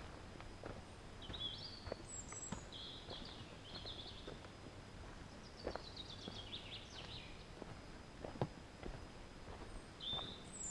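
A songbird sings short high phrases every few seconds, some of them falling trills, over irregular footsteps on a trail.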